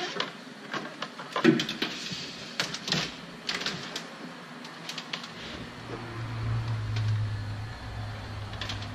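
Wiring being handled and routed through an engine bay: scattered clicks, taps and rustles of wire and plastic, the loudest about a second and a half in. A low steady hum joins about five seconds in.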